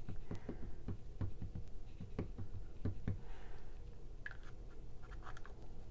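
Soft, repeated tapping of an ink pad dabbed onto a rubber stamp mounted on a clear acrylic block, about three light taps a second, with fainter scattered clicks in the last couple of seconds.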